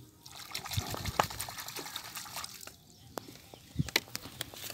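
Hand squelching and sloshing in wet mud and muddy water while digging a crab out of its burrow, with many small scattered clicks and crackles.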